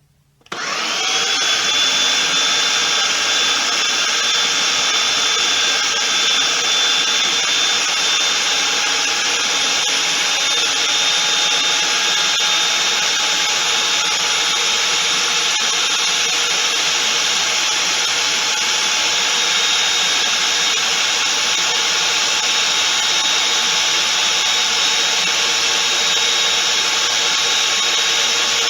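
A kitchen appliance's electric motor starts about half a second in, its whine rising briefly as it spins up, then runs steadily, puréeing cooked pumpkin.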